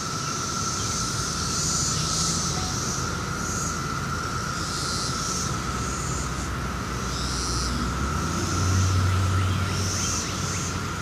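Brood X periodical cicadas chorusing: a steady, even drone with higher buzzing calls from nearer cicadas coming and going over it. A low rumble swells about nine seconds in.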